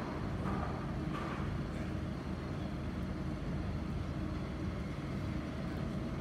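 City-street ambience: a steady low rumble of distant traffic and open-air background noise, with a couple of faint brief higher sounds about a second in.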